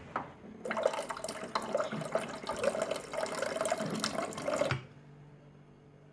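Water running from a tap for about four seconds, then shut off abruptly.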